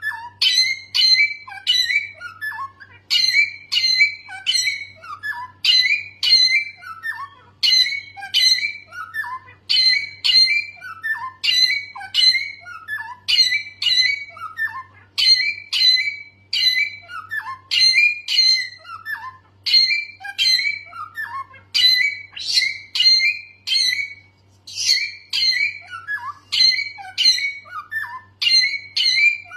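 A songbird singing without pause, repeating short phrases about once or twice a second, each a sharp high note followed by quick falling whistles.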